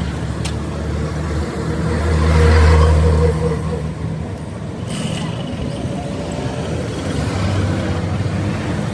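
A motor engine running with a steady low hum that swells louder for about a second and a half, two to three seconds in, with a short click near the start.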